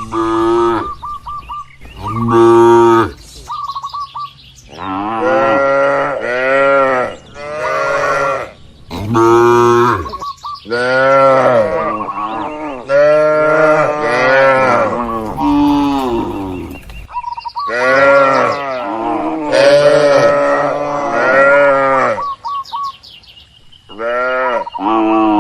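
Many cattle mooing, one long moo after another and often overlapping, each call rising and then falling in pitch.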